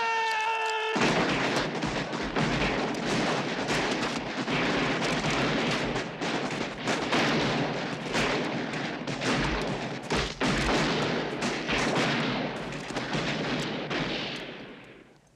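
A long, dense volley of revolver fire from several Colt 1860 Army cap-and-ball revolvers shooting at once, shots overlapping for about thirteen seconds before dying away near the end. A man's yell is cut off by the first shots about a second in.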